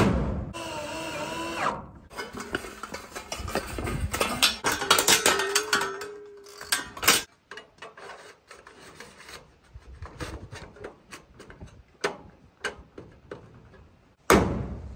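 Cordless drill driving screws to fasten trim, in two short runs of motor whine early on and about halfway, with scattered clicks and knocks of handling between.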